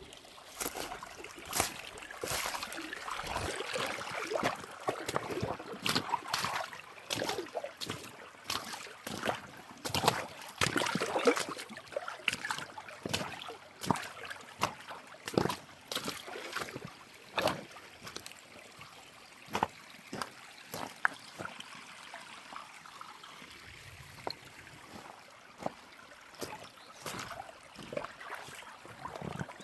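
Water trickling and splashing, mixed with many irregular sharp clicks and knocks that thin out in the second half.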